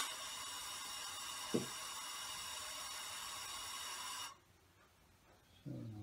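Compressed air hissing steadily through an air engine's valves and lines, with whistling tones in it. It cuts off suddenly about four seconds in. A single knock comes about a second and a half in.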